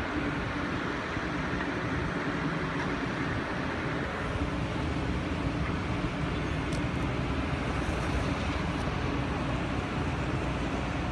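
Grove mobile crane's diesel engine running at a steady drone while it lifts the walkway span.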